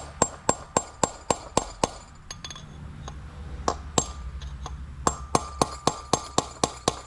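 Hammer striking a steel punch to drive a bearing race out of a tractor's front wheel hub: sharp ringing metal blows about four a second. A run of blows, then a couple of seconds of lighter, scattered taps, then steady blows again.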